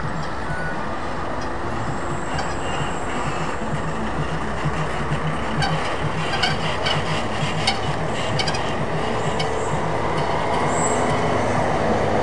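Traffic on a busy city avenue: a heavy vehicle's engine rumbles steadily under the general traffic noise, with a run of rattling clicks about halfway through, growing a little louder near the end.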